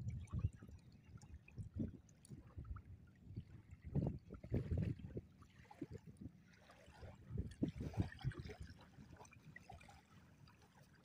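Shallow river water sloshing and splashing around a person wading and working in it, in irregular bursts, the biggest about four to five seconds in and again around eight seconds.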